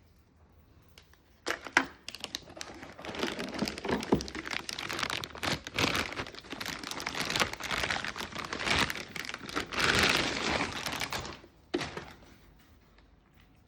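Packaging being unwrapped, crinkling and rustling for about ten seconds, with a sharp knock about a second and a half in and another near the end.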